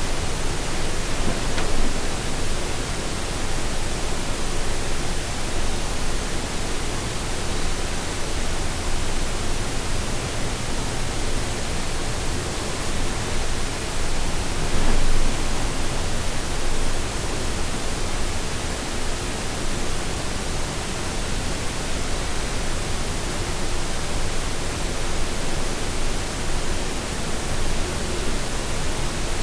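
Steady, even hiss across the whole range with a faint low hum underneath, the sound of a quiet bedroom recorded at high microphone gain; the uploader takes it for a loud buzzing and whistling noise in the room. It swells slightly about two seconds in and again about halfway through.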